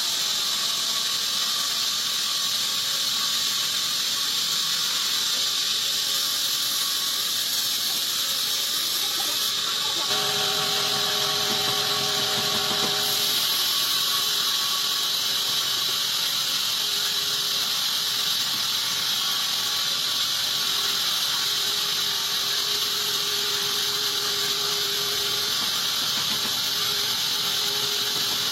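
Band sawmill blade ripping a teak log lengthwise: a steady, high-pitched hiss and whine of the blade in the wood. A few brief lower tones join in about ten seconds in.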